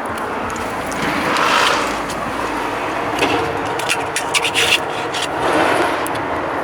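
Street noise of vehicles passing, swelling and fading twice, with a few short clicks and rubbing close to the microphone in the middle.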